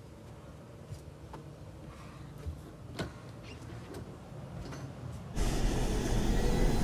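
A sliding glass door handled with a few light clicks and knocks. About five seconds in, a sudden loud, rough rumbling noise starts and keeps going.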